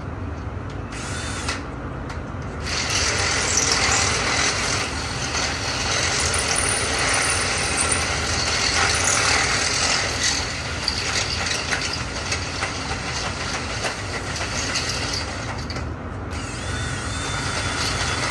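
Power drill running in long stretches on door hardware, with a rapid ratcheting chatter. It stops briefly twice in the first few seconds and once near the end.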